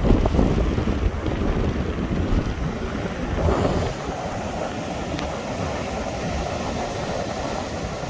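Strong wind buffeting the microphone: a heavy low rumble in gusts that eases about four seconds in, leaving a steady rush of wind.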